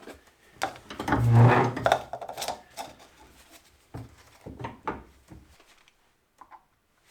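Small parts being handled: irregular clicks and knocks, with a louder scraping rub about a second in. It thins to faint taps and stops about five and a half seconds in.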